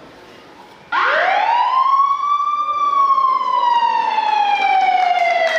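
A siren wail, probably a sound effect played over the hall's speakers: one tone that rises quickly about a second in, then slides slowly downward for several seconds before cutting off.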